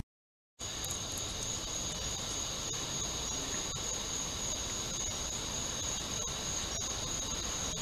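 Steady, high-pitched chirring of crickets, with a low steady rumble underneath. It starts after about half a second of silence.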